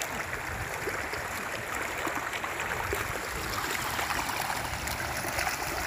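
Shallow stream running over a stony riverbed: a steady sound of flowing water.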